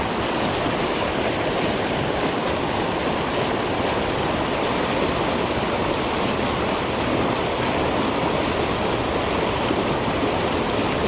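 Steady rush of river water pouring over a low-head dam and churning through the rapids just below it.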